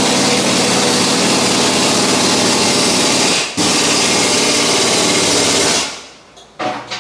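Power wrench, most likely an impact wrench, running loud in two long runs, with a short break about three and a half seconds in and stopping shortly before the end.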